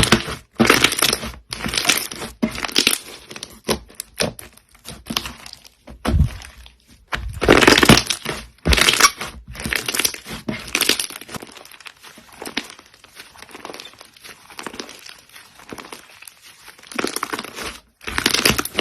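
Slime being squeezed and pressed, giving irregular crackling, crunching bursts, each a fraction of a second to about a second long.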